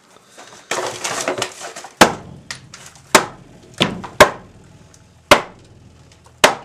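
A steel crowbar smashing into a drywall wall, about six hard separate blows roughly a second apart, each with a short echoing tail, after about a second of rough scraping noise.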